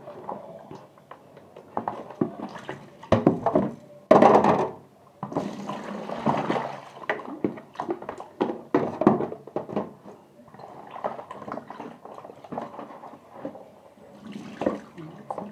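Water splashing and sloshing in a plastic basin as raw chicken pieces are washed by hand, with irregular knocks of plastic containers and a louder splash about four seconds in.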